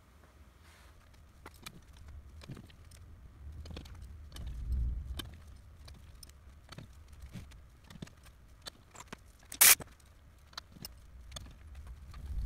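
Small metal tools and bolts clinking and tapping irregularly as hands work the bolts of a steel gear rack on a CNC router frame, with a dull low bump about five seconds in and one sharp, loud clack a little under ten seconds in.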